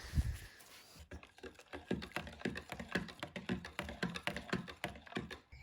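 A rapid, irregular run of sharp clicks and taps, about four or five a second, starting about a second in.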